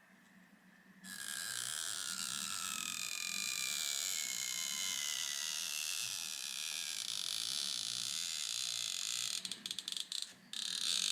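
iPhone 6s battery's adhesive strip being slowly stretched and peeled free: a steady crackling creak with squeaky, slowly falling tones that starts about a second in, stutters and breaks off briefly near the end.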